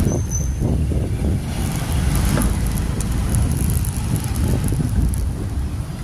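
Heavy, fluctuating wind rumble on the microphone mixed with road and vehicle noise from a moving two-wheeler ride, with a brief faint high squeak about a quarter second in.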